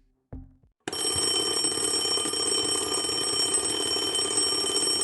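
An alarm bell ringing steadily with a fast, even rattle and shrill high tones. It starts abruptly about a second in, after a brief faint sound.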